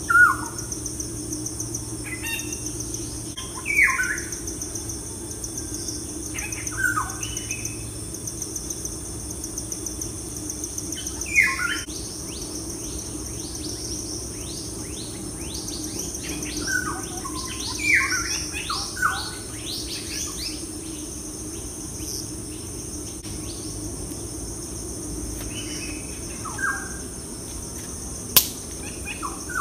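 Birds calling, each call a short falling whistle, every few seconds, with a quick run of calls in the middle, over a steady high insect trill. A single sharp click near the end.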